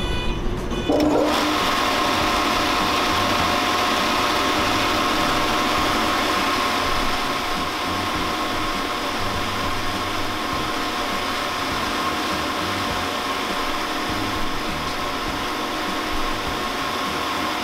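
Yariya pin mill starting up about a second in, its whine rising quickly, then running steadily with a hum and whine of several steady pitches as the pin rotor spins empty in the open grinding chamber.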